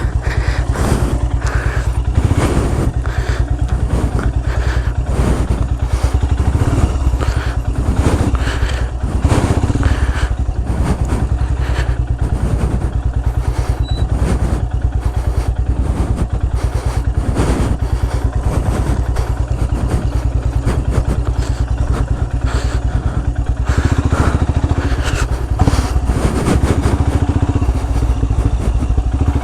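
Royal Enfield Himalayan's single-cylinder engine running steadily, with frequent knocks and clatter from the bike jolting over rough, muddy trail.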